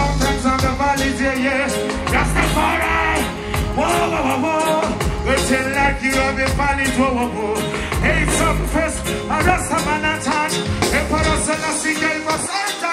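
Live reggae band with a male lead vocalist singing into a microphone over drums, keyboards and bass. The bass and kick drop out near the end.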